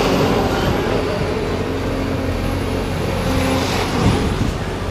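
Diesel engine of a Cat 336 hydraulic excavator running steadily as it digs, with a brief knock about four seconds in.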